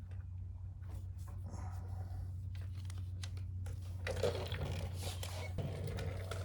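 Small clicks and rattles of parts and hand tools being handled during motorcycle disassembly, with a louder stretch of rustling and scraping about four seconds in, over a steady low hum.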